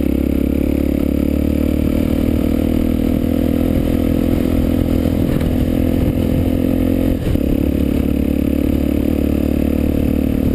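Honda XR 250 Tornado's single-cylinder four-stroke engine running steadily while the bike is ridden, heard through a helmet-mounted camera. The drone dips briefly about seven seconds in.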